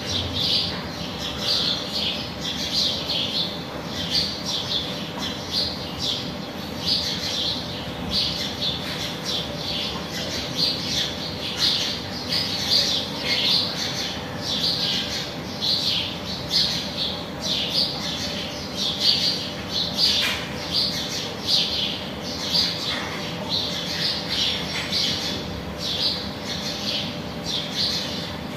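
Small birds chirping and squawking over and over, short calls coming about once or twice a second, over a steady low hum.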